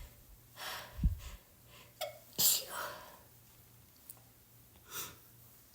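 A person with a head cold sneezing, the loudest sneeze about two and a half seconds in, with quieter breathy bursts before and after it and a brief low bump about a second in.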